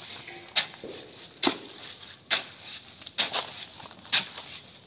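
Hoe blade chopping and scraping through a fairly dry cement mortar mix in regular strokes, about one a second, five in all.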